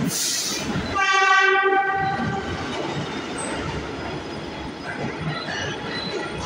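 New York City subway train running past a station platform, its wheels rumbling and clacking on the rails. There is a short hiss at the start, then one horn blast about a second in that lasts about a second.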